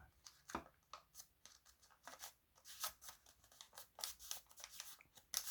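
A sheet of origami paper being folded and creased by hand: a quick, irregular run of faint, crisp rustles and scrapes as the paper's sides are folded in to the centre line.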